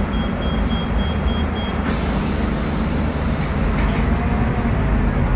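Cabin sound inside a Scania K250UB midibus: its five-cylinder Scania DC09 diesel running steadily, heard from the rear seats. A quick run of short high beeps, about four a second, sounds over the first two seconds. The sound changes abruptly about two seconds in.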